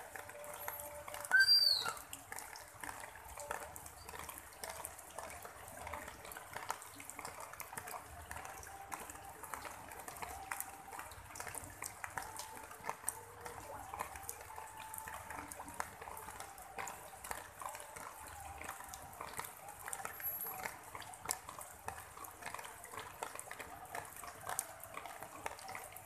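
Light rain falling on broad leaves and wet ground: a dense, steady patter of small drops. One loud chirp sounds about a second and a half in.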